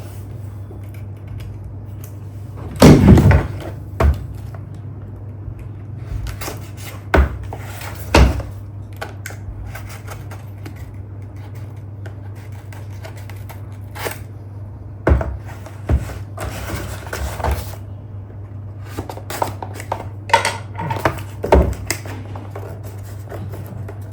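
A Logitech K120 keyboard being unpacked from its cardboard box: scattered knocks, rustling and handling of packaging, with the loudest burst about three seconds in.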